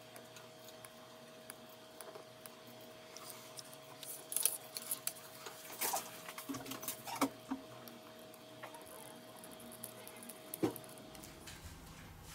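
Faint, scattered clicks and taps of small phone parts and tools being handled on a workbench, with a few louder taps, over a faint steady hum that stops near the end.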